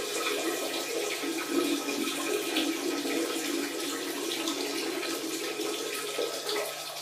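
A steady stream of running, splashing water, a wee noise, with a low steady hum underneath.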